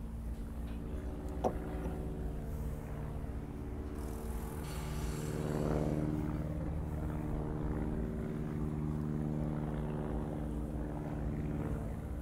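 A steady engine-like drone with a low, even hum that swells and is loudest about six seconds in, with a short hiss just before the peak and a single light click about a second and a half in.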